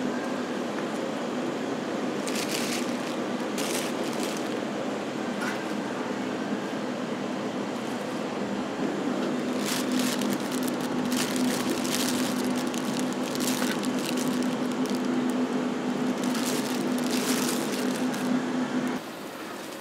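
Steady motor hum of a stainless-steel ice cream machine, with plastic bags rustling and crinkling as coconut ice cream is scooped into them. The hum cuts off abruptly near the end.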